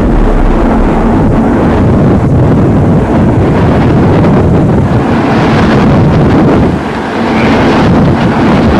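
Hurricane-force wind blowing hard and buffeting the microphone, a loud, steady rush that eases briefly about seven seconds in.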